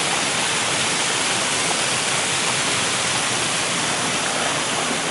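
Steady rushing hiss of water falling at Bhimlat waterfall.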